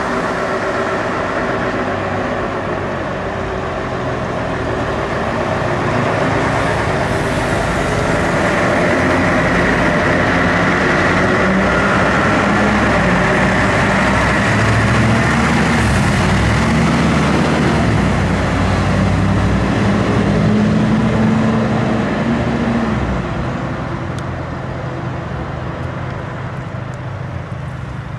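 Diesel engine of a heavy fire truck pulling away and driving past, towing a trailer-mounted large fan. The engine drone grows louder through the middle and drops off near the end as the truck moves away.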